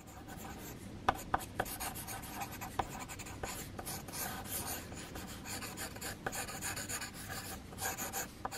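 Mechanical pencil sketching on paper: graphite scratching across the sheet in quick, irregular strokes, with a few sharper ticks in the first three seconds.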